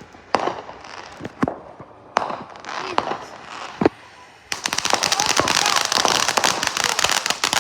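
Firecrackers going off: a few separate sharp bangs, then about halfway through a long string of firecrackers starts popping in a rapid, dense crackle.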